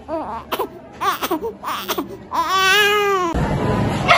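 A newborn baby crying: a few short whimpering cries, then one long rising-and-falling wail. Near the end the crying cuts off abruptly and gives way to a noisy room sound.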